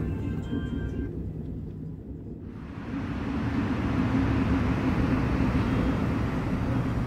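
Onboard train noise: a low rumble from a KTX high-speed train pulling out of the station, then, about two and a half seconds in, the louder steady rush and rumble of an MTR Airport Express train running along its track.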